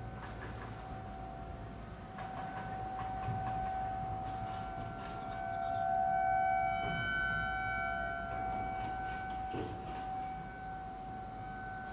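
Outdoor tornado warning siren sounding its steady alert tone during a routine monthly test. The steady wail swells louder from about five to eight seconds in, with higher tones joining, then eases back.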